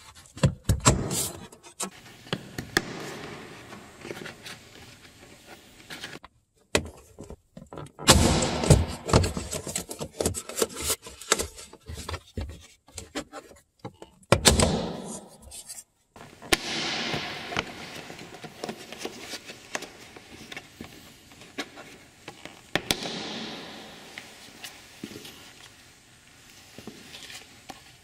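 Plastic clicks, knocks and scraping as the retaining pins of a Toyota RAV4's fog light cover panel are pushed out from inside the engine bay and the plastic panel is worked loose. The knocks come in clusters, busiest about a second in and again from about 8 to 15 seconds in.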